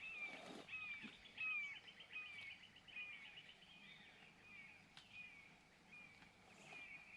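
A bird calling over and over: short falling chirps about twice a second, faint, with a quick chattering trill over them for the first few seconds.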